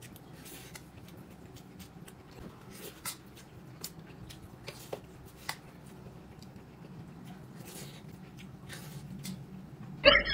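Faint eating sounds at a table: small clicks of utensils against dishes and chewing over a low hum. Just before the end a loud pitched sound cuts in suddenly.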